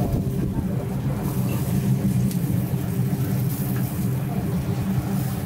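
Steady low hum of the charcoal grill's rotisserie motor turning a row of geared skewers.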